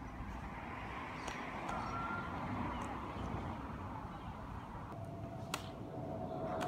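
Street ambience: a car passing on the road, its noise swelling and fading over a few seconds, with birds calling and one sharp click about five and a half seconds in.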